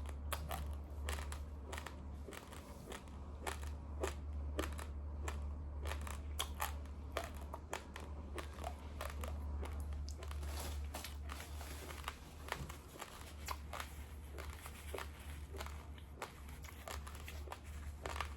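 Raw, uncooked long-grain basmati rice being crunched and chewed: a dense, irregular run of crisp cracks as the dry grains break between the teeth, over a steady low hum.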